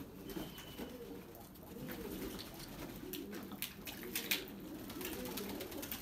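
Domestic pigeons cooing: a low, wavering, overlapping murmur from several birds, with a few short sharp clicks.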